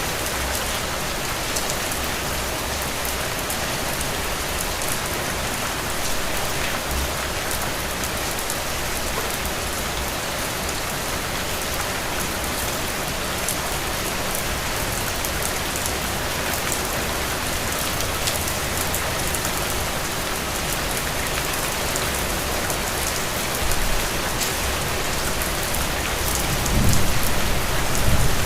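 Steady, heavy rain falling and pattering on surfaces, with a low rumble swelling near the end.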